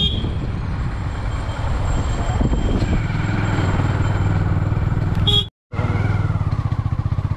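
A 180cc TVS Apache motorcycle's engine running steadily under way. The sound cuts out completely for a moment about five and a half seconds in.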